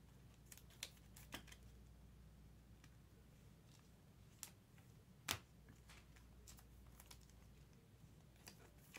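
Near silence broken by a few faint clicks and taps, the loudest about five seconds in: a trading card in a rigid plastic holder being handled.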